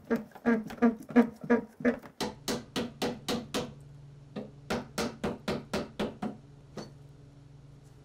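Wooden mallet rapidly tapping a wooden slab along a mitred waterfall joint, about five knocks a second in two runs with a short pause between, to bring the two parts into alignment.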